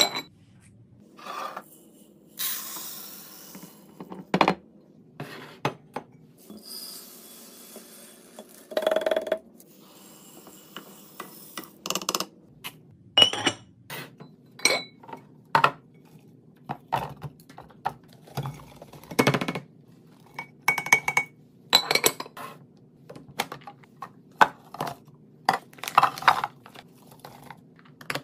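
Heavy glass canister lids clinking and scraping against glass jars, with a few stretches of rattling as detergent beads and pods are poured in. Then a run of sharp taps and clicks as pods drop into the containers and a plastic pop-top canister lid is pressed on.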